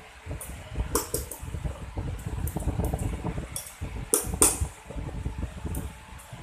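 Steel surgical dissecting scissors being worked open and shut, the blades giving a string of short metallic snips and clicks, with a louder metal clack about four seconds in. A steady low hum runs underneath.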